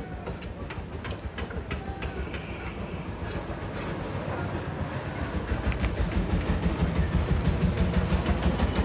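Low, rhythmic mechanical rumble with an even pulsing beat, getting louder from about halfway through, with a few light metal clinks near the start.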